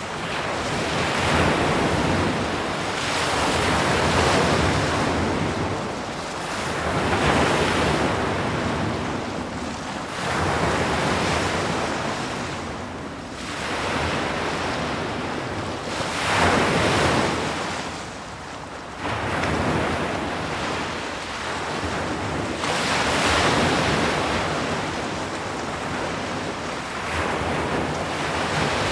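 Sea waves breaking on a shore, the surf swelling and falling away in a slow rhythm every few seconds.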